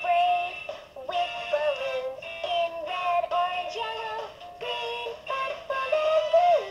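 LeapFrog My First Scout Book playing a children's song through its small built-in speaker: a melody of short held notes stepping up and down, sounding thin and tinny.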